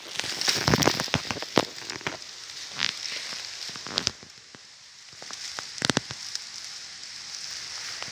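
Dry twigs and forest litter crackling and snapping as they are brushed and stepped on, in scattered clicks that are densest in the first couple of seconds and again around the sixth, over a steady high hiss.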